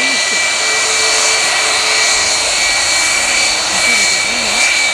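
Boeing 757-200 airliner taxiing past at low power: a loud, steady rush of jet-engine noise with a thin high whine on top.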